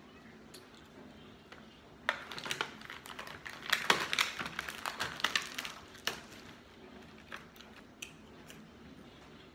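Plastic food packaging crinkling and rustling in a dense run of crackles for about four seconds, starting about two seconds in, followed by a few scattered clicks.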